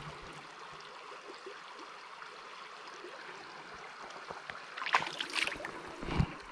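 Shallow rocky stream running: a steady rushing of water. About five seconds in comes a brief splashing, and a low thump follows just before the end.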